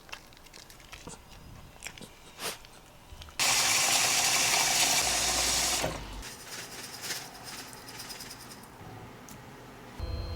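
Water running from a tap for about two and a half seconds, cut off sharply, with light clicks and clatter before and after.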